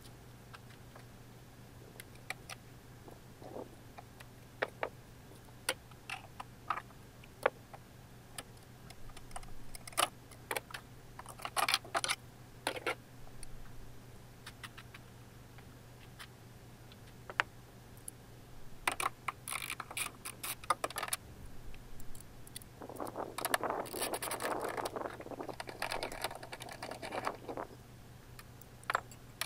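Scattered clicks and light knocks of plastic trim and a hand tool being handled at a car's rear light cluster, with a longer stretch of rustling handling about three quarters of the way through. A faint steady hum lies underneath.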